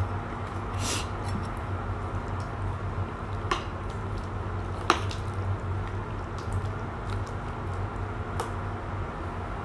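A spoon stirring a pot of curry with long beans, with two sharp clinks of the spoon against the stainless steel pot about three and a half and five seconds in, over a steady low hum.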